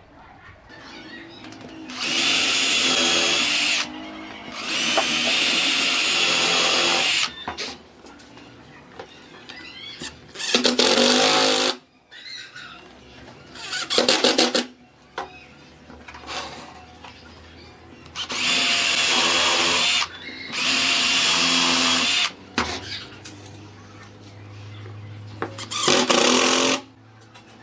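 An electric power tool switched on and off in about seven short bursts, each one to three seconds long, its motor whining high as it runs.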